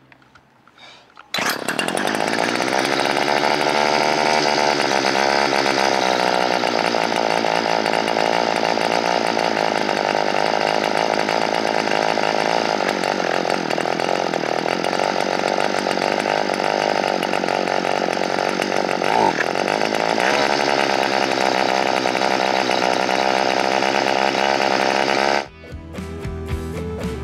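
Homelite Z3300 two-stroke chainsaw engine running after it comes in suddenly about a second in, its revs rising and falling slowly in a few places. The owner believes the carburettor's high-speed needle circuit is still clogged from bad gas, leaving it running lean. It cuts off near the end, when music comes in.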